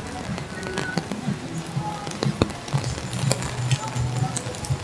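Rainy pedestrian street ambience: music playing with a steady low bass, people's voices, and scattered sharp raindrop ticks.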